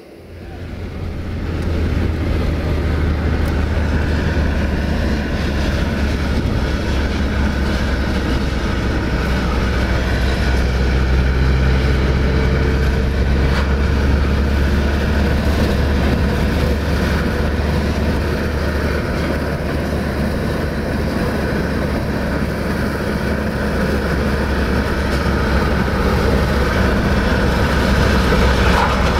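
Steady low drone of road and engine noise inside a moving car's cabin, building up over the first two seconds and then holding steady.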